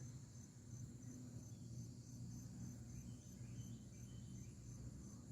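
Faint insects chirping outdoors: a high, steady pulsing of about five beats a second, over a low steady hum.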